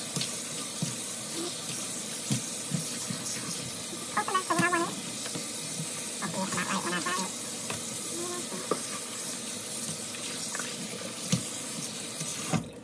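Kitchen faucet running into a stainless steel sink while a wet, dyed wig is rinsed and squeezed under the stream. The water sound is steady and cuts off suddenly near the end.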